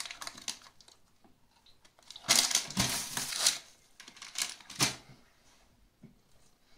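Crinkly rustling and crackling as a red candy strip is handled and eaten, in a burst about two seconds in and a shorter one about four and a half seconds in.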